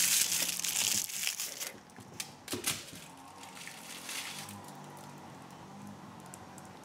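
A crinkly aluminium foil ball crackling loudly as it is handled and thrown, followed by a few sharp clicks about two to three seconds in as it lands and skitters on a hardwood floor.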